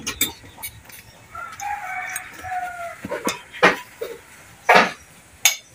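A rooster crows once, a drawn-out call starting about a second and a half in. Then come several sharp knocks and clanks of hand tools against the engine, the loudest near the middle and again about a second later.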